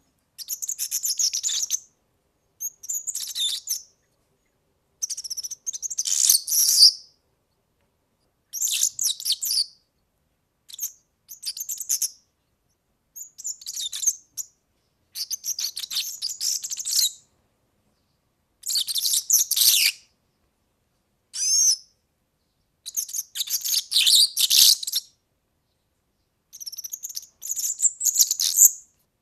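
European serin singing: about a dozen high-pitched, fast, fluttering song phrases, each half a second to two seconds long, separated by short silent pauses.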